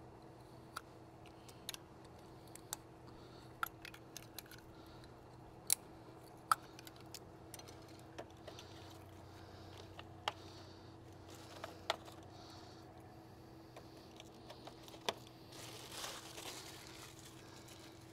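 Scattered sharp plastic clicks and taps as the small plastic lug nut covers of a Tesla wheel cap kit are pulled off one by one with the kit's removal tool and handled, with a brief rustle near the end. A faint steady hum runs underneath.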